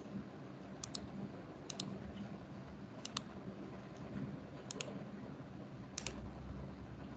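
Computer mouse clicking: five separate double clicks, each a quick press-and-release pair, irregularly spaced about a second or more apart, over a faint steady hum.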